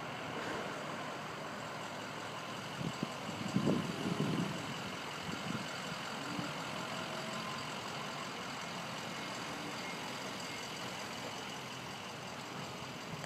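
Steady engine noise of distant heavy machinery or trucks, with a short patch of louder low bumps about four seconds in.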